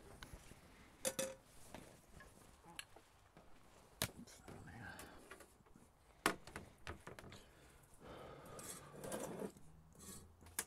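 Cutlery and crockery: a knife and fork clicking and scraping on a plate, with a few sharp knocks a couple of seconds apart.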